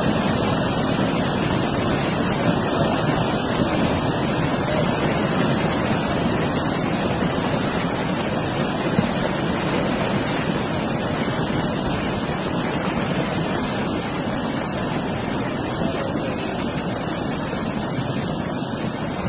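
Landslide: a continuous rush of rock and debris pouring down a steep mountainside, a steady noise that eases slightly toward the end.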